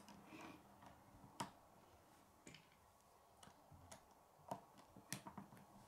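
Faint, scattered clicks and taps of plastic K'nex pieces being handled and fitted together, sharpest about a second and a half in and again around five seconds in.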